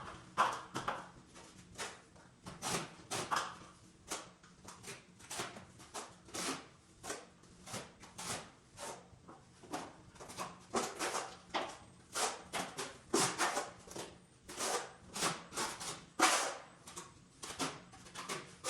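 Trowel scraping and pressing mortar onto metal lath mesh in short repeated strokes, roughly one and a half a second.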